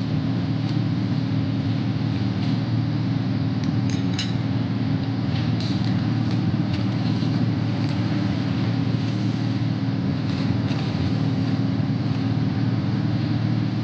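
Steady low background hum with a few light clinks of tableware, about four, six and ten seconds in.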